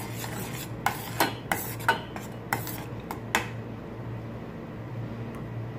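Metal spoon scraping and clinking against a stainless steel pot while stirring a blended shallot, garlic and tomato spice paste being sautéed in oil, about eight clinks over the first three seconds or so. After that only a low steady hum remains.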